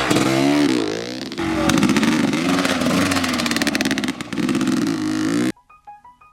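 GasGas EC 250 two-stroke dirt bike engine with a Pro Circuit full exhaust, revving up and down. It cuts off suddenly near the end, and soft piano music begins.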